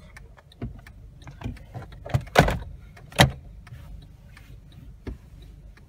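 A series of light clicks and two sharp knocks, about a second apart near the middle, over a low steady hum inside a car cabin.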